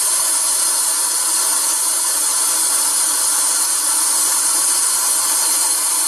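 A loud, steady hiss that cuts in suddenly and holds even throughout, with no pitch or rhythm in it.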